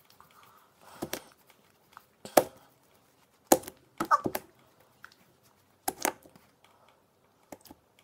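Wet, jiggly slime squelching and popping as a mesh container is pressed into it and pulled away. About six short, sharp squelches come a second or so apart.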